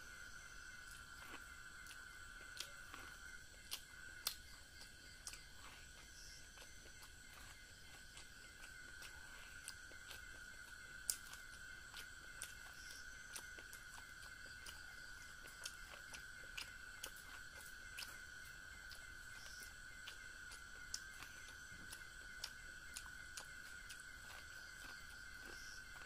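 Faint, irregular sharp clicks of someone biting and chewing kernels of boiled corn on the cob, a few of them louder. A steady, thin high tone runs underneath.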